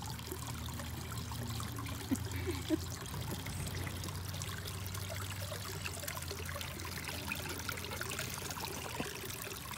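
Water from a small garden waterfall fountain trickling and pouring steadily into its basin, with a low hum underneath.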